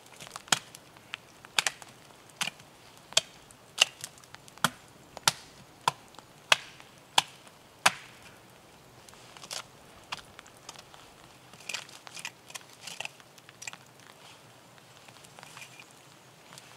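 Hatchet chopping wood: a run of about a dozen sharp strikes, roughly one and a half a second, that stops about eight seconds in, followed by softer, irregular knocks and cracks.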